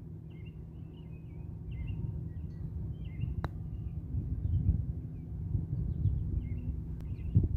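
Small birds chirping over a low, steady rumble. About halfway through, a single sharp click as a golf club strikes the ball on a short shot toward the green.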